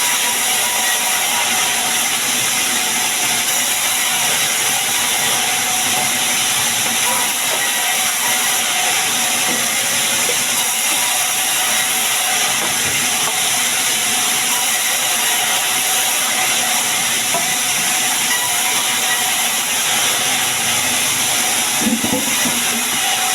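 Sawmill saw running on sengon wood: a steady, loud hiss with a faint whine, and a brief knock near the end.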